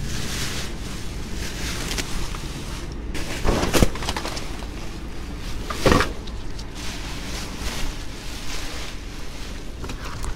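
Plastic trash bags and cardboard rustling and shifting as a gloved hand rummages through a dumpster, over a steady low rumble. Two sharper, louder sounds of the rummaging stand out about four and six seconds in.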